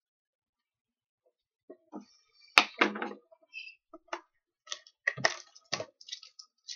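Trading cards and their packaging being handled: after near silence, scattered clicks and rustles, with one sharp crack about two and a half seconds in.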